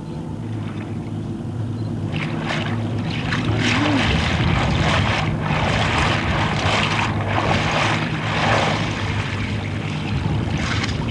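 Small fishing boat's engine running with a steady low hum. From about two seconds in, water splashes and rushes in uneven surges as a clam dredge's iron cage is hauled up through the water beside the hull.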